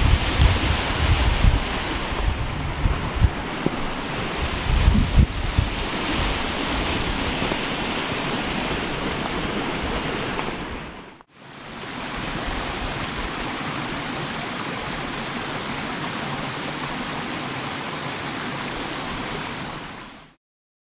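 Wind blowing on the microphone: a steady rushing hiss with heavy low buffeting gusts in the first five seconds or so. The sound drops out briefly about eleven seconds in, then runs on more evenly and stops shortly before the end.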